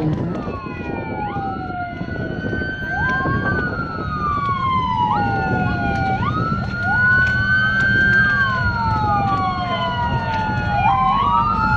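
Several sirens wail together after a countdown, signalling the send-off, each rising quickly then falling slowly and overlapping out of step. A steady tone switches on and off among them over a low rumble.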